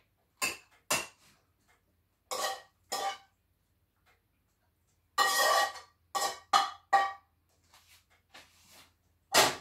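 A metal spoon scraping and knocking food out of a frying pan into a bowl: a string of short, ringing scrapes of metal on the pan, with a longer scrape a little past halfway and a sharper knock at the very end.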